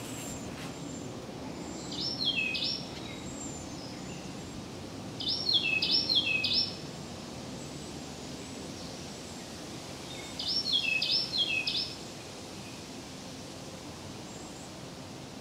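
Wren singing: three short phrases, each of three or four quick, falling notes, a few seconds apart.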